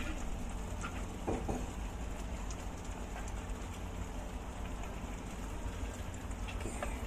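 Capcay vegetables in sauce sizzling and bubbling steadily in a wok over a gas flame as starch slurry is poured in, with a few faint taps of a spoon against the bowl.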